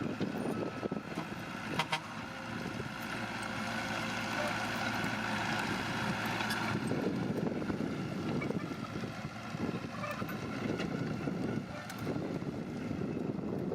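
Heavy diesel earthmoving machinery, a bulldozer or dump truck, running steadily, with a few sharp knocks. The engine tone changes about seven seconds in, to a rougher, denser rumble.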